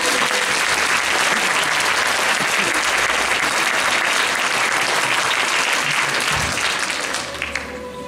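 Audience applauding, a dense steady clapping that thins out and fades near the end.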